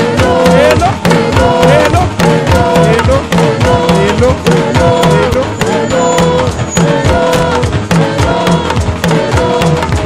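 Live praise music with drums and hand percussion keeping a steady beat under a wavering melody line.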